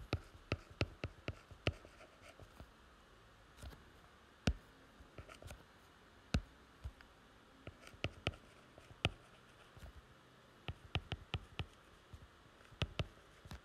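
Faint, sharp taps and clicks of a pen on a writing tablet as capital letters are written stroke by stroke. They come irregularly, several in quick succession, with pauses between clusters.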